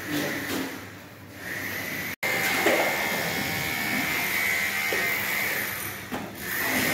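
A trowel scraping as it spreads tile adhesive over a board wall, then a small power tool's motor starts a steady high whine about a second and a half in and runs on.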